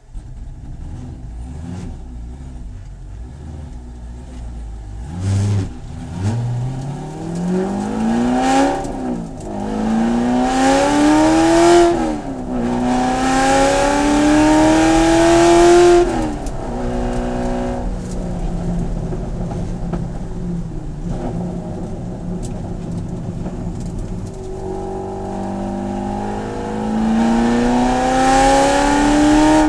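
Corvette C7 race car's V8 accelerating hard through the gears, its pitch climbing and then dropping sharply at each of three upshifts. It then lifts off and runs at a steadier, lower pitch before pulling up through the revs again near the end.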